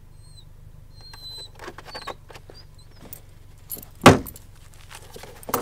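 A single loud thump about four seconds in, over the low steady hum of an idling vehicle engine. Scattered rustles and clicks come before it, and two thin high squeaks come in the first second and a half.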